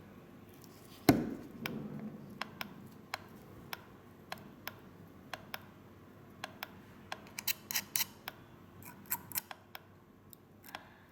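Scattered small, sharp clicks and taps from ceramic tweezers working the wraps of a freshly fitted vape coil in an RTA while hot spots are removed, after one louder knock about a second in.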